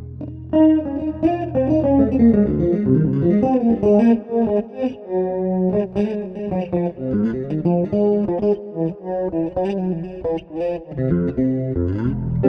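Electric bass guitar playing fast melodic runs of single notes mixed with chords, the notes moving quickly up and down the neck.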